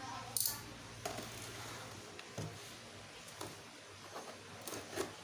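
Cardboard box and packaging being handled and opened: a handful of scattered short taps and clicks with light rustling, over a low steady hum.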